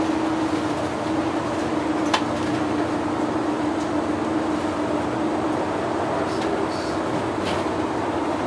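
Double-decker bus driving along, heard from inside: a steady engine and road drone with a constant hum, broken by a few short, sharp ticks.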